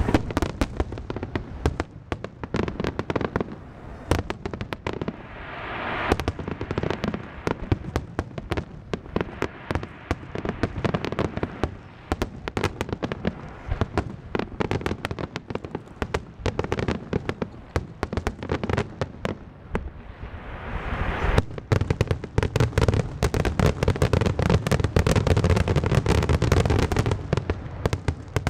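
Aerial fireworks bursting: a rapid, continuous crackle of many pops and bangs in quick succession. It grows denser and louder in the last third.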